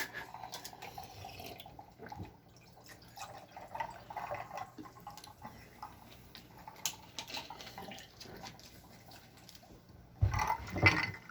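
Mountain Dew Game Fuel soda being poured and trickling into a cup, with faint clicks. A louder sound comes near the end.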